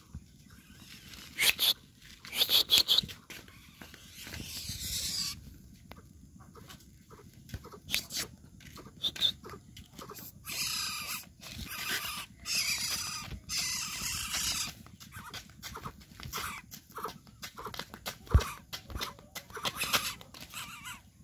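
Javan coucal giving harsh, hissing calls in bouts of about a second, several times over, with short clicks and scuffs between them.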